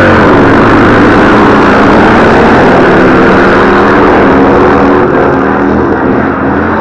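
Vintage flat-track racing motorcycles, a Harley-Davidson KR and an Indian, running loud at racing speed. The engine pitch drops in the first second as one bike goes past, then the engines carry on from around the track, a little quieter after about five seconds.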